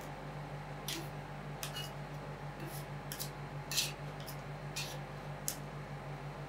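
Metal ice cream roll spatulas clicking and scraping on the steel cold plate, in irregular sharp strokes, the loudest a little before four seconds in, over a steady low machine hum.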